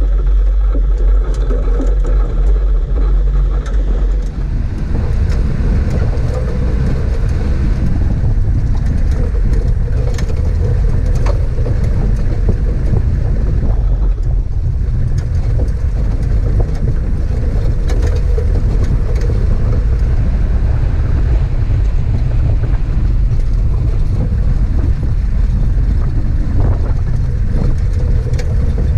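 4WD vehicle driving along a rough dirt track: a steady, loud low rumble of engine and tyres, broken by frequent small knocks and rattles from the bumps.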